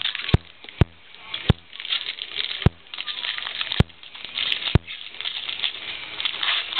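Trading cards being handled and shuffled by hand: a steady papery rustling and sliding, broken by about six sharp clicks at uneven intervals.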